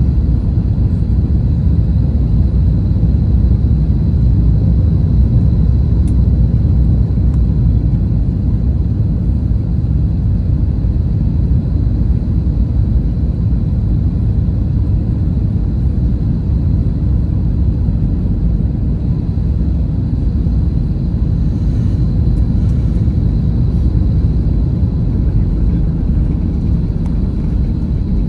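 Steady low rumble inside the cabin of an Airbus A321 airliner during its landing, with a faint high steady whine over it.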